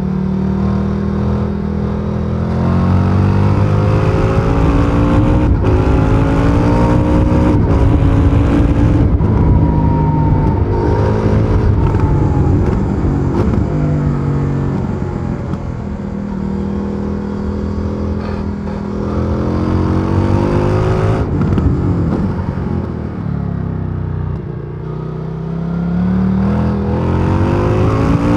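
2023 Indian FTR Sport's 1203 cc V-twin engine through its stock exhaust, heard onboard while riding: the pitch climbs as it accelerates and drops as the throttle is eased off, several times over, then pulls again.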